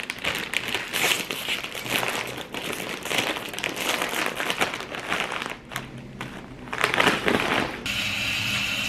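Lay's Dill Pickle potato chip bag crinkling as it is handled and its top folded shut. Near the end the crinkling stops and a steady hiss takes over.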